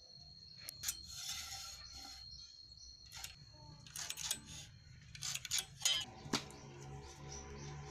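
Faint rubbing and scraping strokes with scattered light clicks and knocks, as of wood or tools being handled. A few short scrapes stand out about a second in and again around four and six seconds in.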